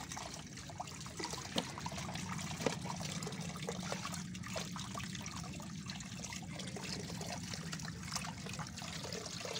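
Water running and trickling steadily, with scattered small clicks and knocks.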